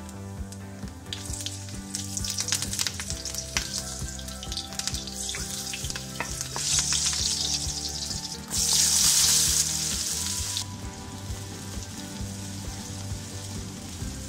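Cumin seeds and green chillies sizzling in hot oil in a non-stick wok, with sharp popping crackles in the first few seconds. About eight and a half seconds in, a much louder rush of sizzling lasts about two seconds as more food goes into the oil.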